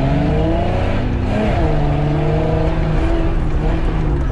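Mitsubishi Pajero's V6 engine revving hard as the 4x4 pulls away from the start line, its pitch climbing over the first second, dipping and recovering about a second and a half in, then holding steady under load up the slope.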